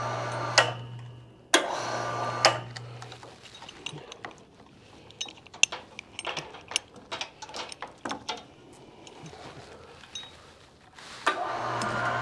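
Scattered light metallic clicks and ticks, from the log roller's winch chain and hook being handled and wrapped around a log. A low steady hum runs briefly at the start, again from about one and a half to three seconds in, and comes back near the end with a sharp click.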